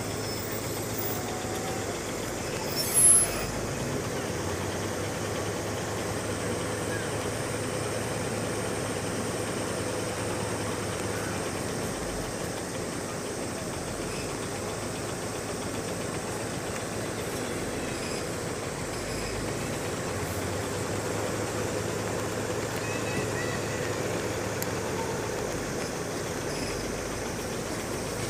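Steady drone of the zoo's safari bus engine running at idle, with a constant hum. A brief sharp sound stands out about three seconds in.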